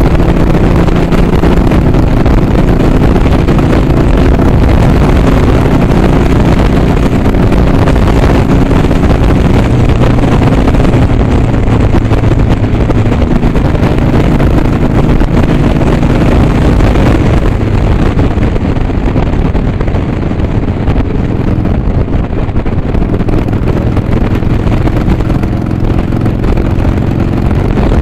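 Harley-Davidson Sportster's air-cooled V-twin engine running steadily at cruising speed, heard from the rider's seat with wind rushing over the microphone. The engine's pitch shifts a little a few times as the throttle changes.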